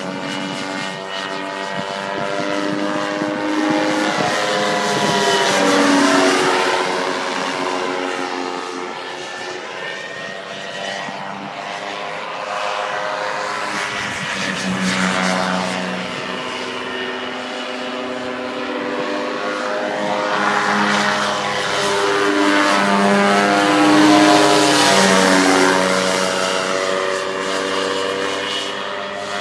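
Paramotor's engine and propeller droning as the powered paraglider flies past low overhead, the pitch sweeping up and down with each of several passes.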